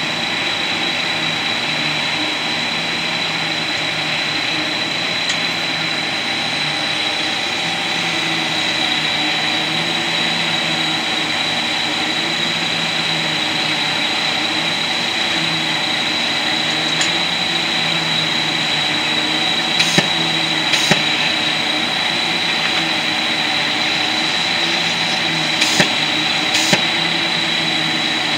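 Krones tray loader and shrink wrapper running, packing cans into six-pack trays: a steady din of chain conveyors and drives with a steady high whine throughout. Four sharp clacks of the machinery come in the second half.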